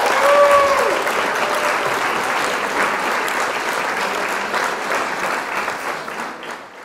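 A crowd applauding, with a few cheers in the first second, fading away near the end.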